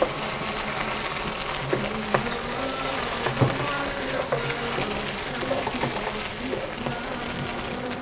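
Red curry paste sizzling steadily in hot oil with a little coconut cream in a nonstick wok, stirred with a wooden spatula that scrapes and knocks lightly against the pan a few times. This is the stage of frying the paste in coconut cream until the fat separates.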